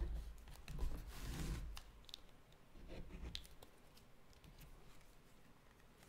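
Faint handling sounds of craft work on a bamboo cutting board: a soft rustle in the first couple of seconds as a glue tube is handled and squeezed, then a few light clicks and taps.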